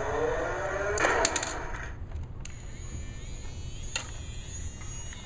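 Plastic toy trucks handled on a hardwood floor: a rattle of clicks about a second in, then a few single plastic knocks.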